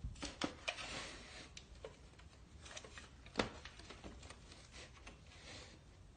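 Irregular clicks and knocks from a cat pawing at a hexagonal toy box on a wooden floor. There is a quick run of clicks in the first second and a half, and the loudest single knock comes about three and a half seconds in.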